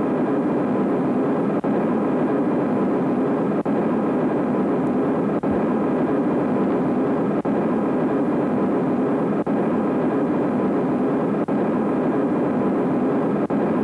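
Steady airliner cabin drone of engine and air noise, even in level, with a brief dip about every two seconds.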